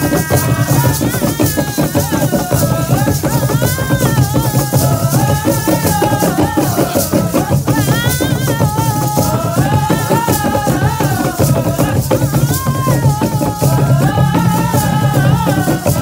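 Live traditional music from a cultural dance troupe: fast, steady rattle strokes over drumming, with voices singing a wavering melody.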